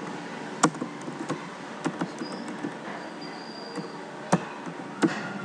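Computer keyboard keys being typed, a run of separate clicks at uneven spacing, one louder keystroke about four seconds in.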